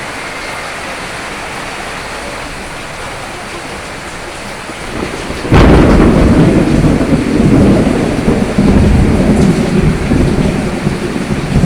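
Steady rain, then about halfway through a sudden thunderclap with a sharp crack that rolls on as a loud, low rumble under the rain.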